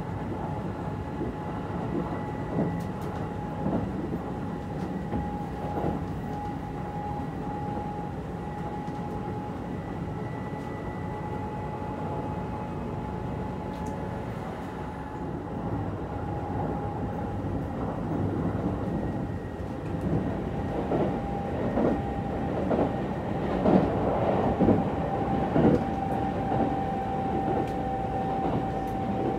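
Running noise heard inside a Kintetsu 22000 series (ACE) limited express car: a steady rumble with a faint steady tone. Past the middle, a rhythmic clatter of the wheels over rail joints gets louder.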